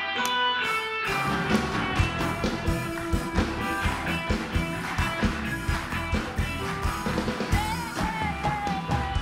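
Upbeat band music from the house band. A guitar plays alone at first, then drums come in about a second in with a fast, steady beat under the guitar.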